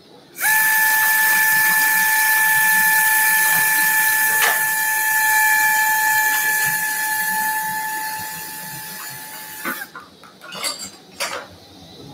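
Handheld surgical power drill running at a steady pitch for about nine seconds, boring a screw hole into the dog's tibia through a drill guide on the bone plate. It stops abruptly, and a few clicks follow.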